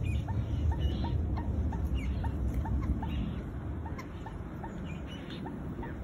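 Common moorhens calling: a steady series of short notes, about three a second, with higher peeps over them from the family of adults and small chicks.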